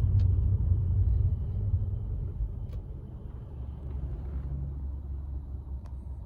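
A low, steady rumble that slowly fades, with a few faint clicks.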